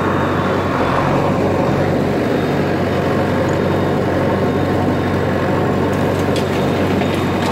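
JCB backhoe loader's diesel engine running steadily with an even low hum, a few faint clicks about six seconds in.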